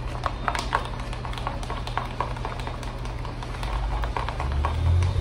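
A plastic spatula clicking and scraping against a plastic mixing bowl as it stirs a thick hair-mask cream, with light, irregular clicks a few times a second. A steady low hum runs underneath and grows louder near the end.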